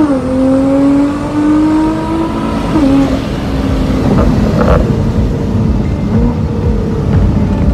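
Nissan GT-R's twin-turbo V6 at full throttle, heard from inside the cabin during a launch-control drag pass. The engine note climbs and drops at an upshift right at the start and again about three seconds in. After that, wind and road noise grow loud under a steadier engine note.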